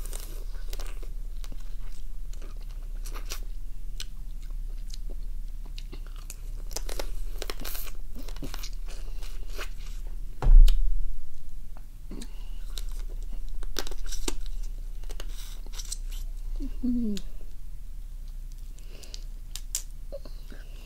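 Close-up chewing and crunching of raw crab, with many small wet clicks and cracks of crab meat and shell. A loud dull thump comes about ten seconds in.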